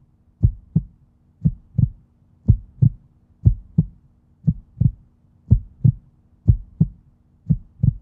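Normal heart sounds: a steady lub-dub, each beat a pair of short low thumps about one beat a second, with quiet between them and no whooshing murmur, the proper sound of a healthy heart.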